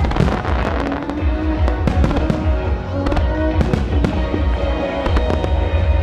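Aerial fireworks going off in rapid succession, a dense run of sharp bangs and crackles over a continuous low rumble, with music playing alongside.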